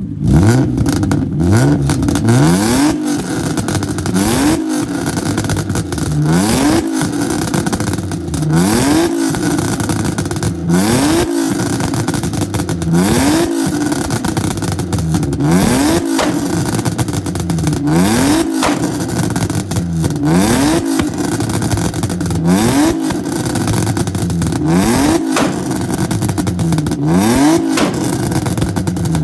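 BMW E36 325i's M50B25TU 2.5-litre straight-six revved hard over and over, about one rev every two seconds, each climbing and then falling back. The exhaust crackles and pops as each rev drops off.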